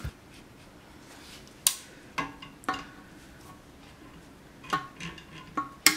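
A handful of separate sharp clicks and light knocks, about seven, from a Quadra-Fire Classic Bay 1200 pellet stove's convection blower being handled while its plastic squirrel-cage fan is gripped and twisted to work it off the motor shaft.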